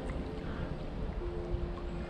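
Background music with long held notes over a steady low rumble.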